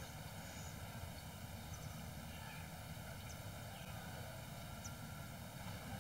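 Faint steady background hiss with a low rumble: the quiet room tone of the soundtrack, with no distinct event.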